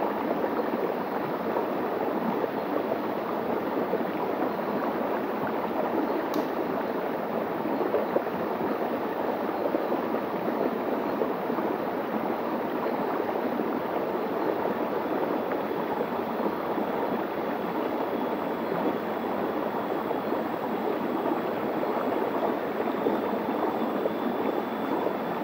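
Shallow stream flowing over rock slabs and small cascades: a steady rush of running water.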